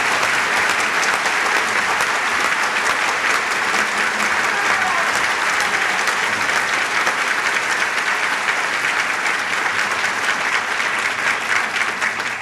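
Sustained applause from a large audience, many hands clapping at once in a dense, steady patter that thins out at the very end.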